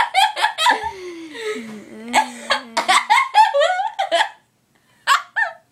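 A woman in a fit of hiccuping laughter: rapid bursts of laughs, a long drawn-out squealing laugh that falls in pitch then holds, more quick bursts, then after a short pause two short sharp hiccups.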